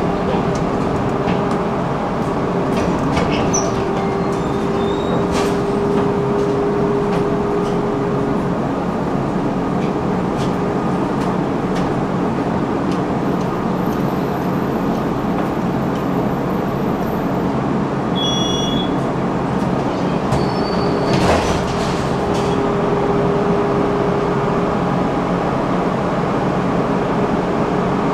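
Tram running along the track, heard from aboard: a steady rumble with scattered clicks of the wheels on the rails and a hum that fades in and out. A brief high tone comes about eighteen seconds in, and a sharp knock a few seconds later.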